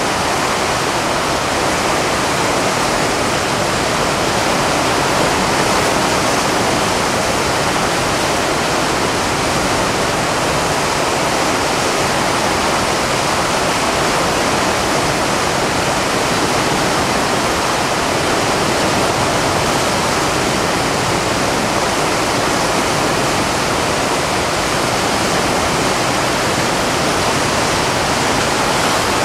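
Whitewater rapid rushing between large boulders on a mountain river: a loud, steady wash of water noise that does not change.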